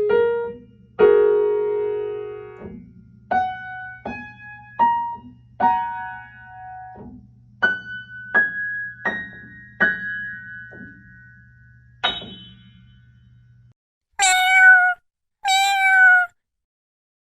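Piano playing a simple beginner tune on the black keys, one note at a time, each note left to ring and climbing higher up the keyboard, until the playing stops about twelve seconds in. Near the end come two cat meows, each about a second long.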